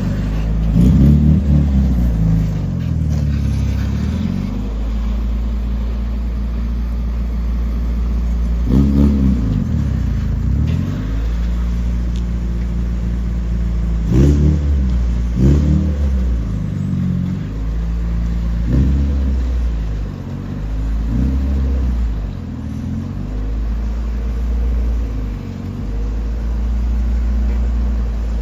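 Car engine running while driving, its pitch dropping and climbing again several times as it slows and accelerates, over a steady low drone.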